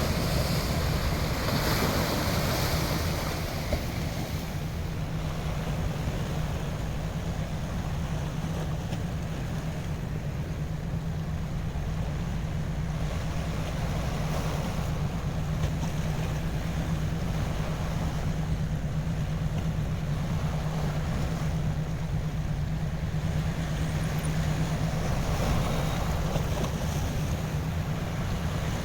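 Ocean waves washing in slow swells, with wind on the microphone and a steady low hum underneath.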